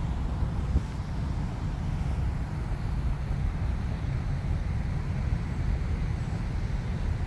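Outdoor ambience made up of a steady low rumble with a faint hiss above it, and one brief knock just under a second in.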